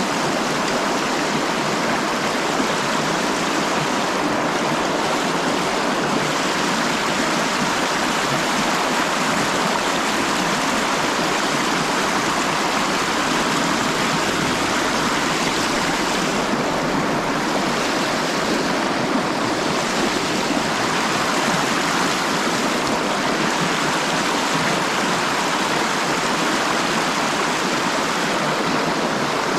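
River water rushing steadily over a shallow, rocky riffle of whitewater.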